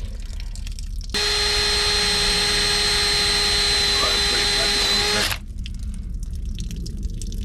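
Cordless drill running at steady speed as it bores into a sailboat's fibreglass keel to drain trapped water, starting about a second in and stopping suddenly about five seconds in.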